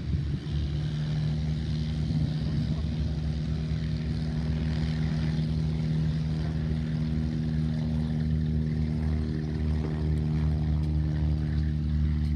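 Light piston-engine airplane running with a steady, low propeller drone that holds one pitch throughout.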